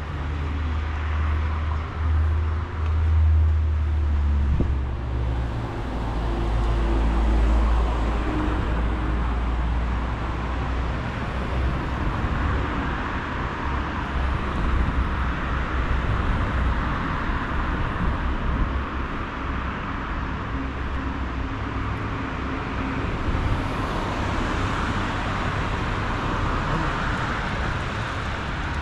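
Street ambience with traffic: a car engine running close by for the first several seconds, then a steady wash of road and outdoor noise.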